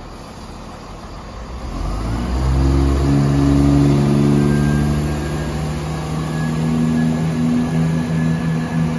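ScotRail Class 158 diesel multiple unit pulling away from the platform. Its underfloor diesel engines open up about two seconds in and keep running under power as it accelerates, giving a steady, loud engine drone.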